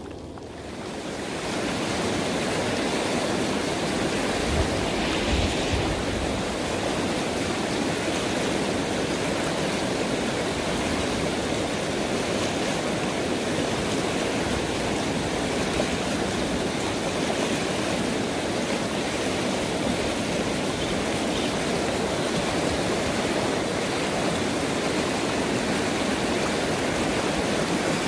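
Fast river water rushing over rocks in rapids: a steady, even rush that swells up over the first two seconds, then holds.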